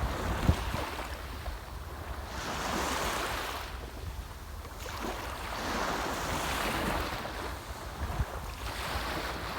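Sea waves washing onto the shore, the surf swelling and fading about every three seconds, with wind buffeting the microphone in low rumbles near the start and again near the end.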